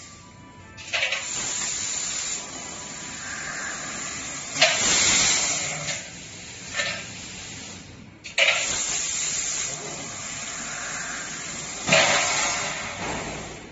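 Fiber laser tube cutting machine's assist gas hissing from the cutting nozzle in several sudden blasts as it pierces and cuts a rectangular metal tube, each blast fading after a second or more.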